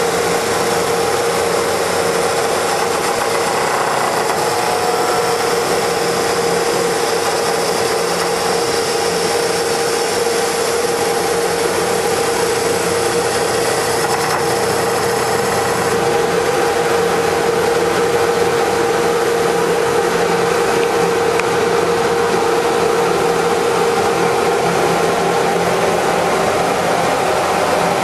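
Hydraulic copying lathe running: a steady machine noise with a held hum, its sound shifting slightly about halfway through.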